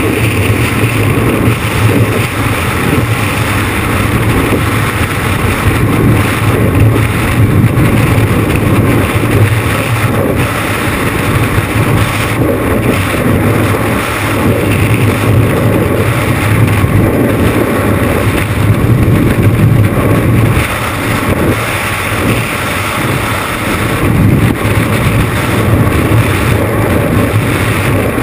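Skydiving freefall wind blasting across the camera's microphone: a loud, steady rushing roar that gusts a little but never lets up.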